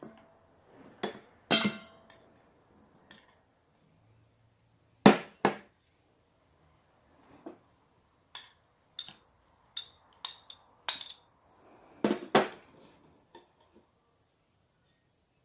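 Kitchen dishes and utensils clinking and knocking at an irregular pace, about fifteen separate strikes, some ringing briefly.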